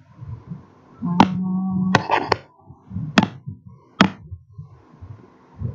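Sharp taps and clicks, about six of them, irregularly spaced. A steady hummed tone lasts about a second, starting about a second in.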